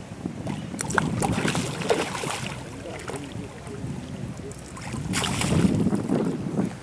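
Water splashing and sloshing as a hooked carp thrashes at the surface and is scooped into a landing net, with wind buffeting the microphone. The splashing is loudest about five seconds in, as the net is lifted.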